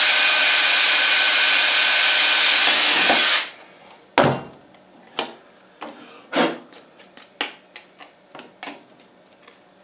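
Cordless drill running at a steady speed as it bores through a vinyl outlet cover plate, stopping sharply about three and a half seconds in. Then a knock and a string of light plastic clicks and taps as the plate and box are handled.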